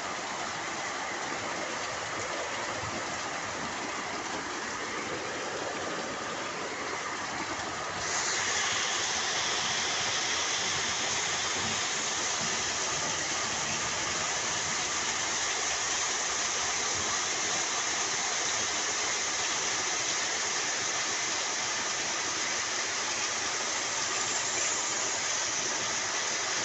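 Heavy downpour: a dense, steady hiss of rain that turns suddenly louder and brighter about eight seconds in.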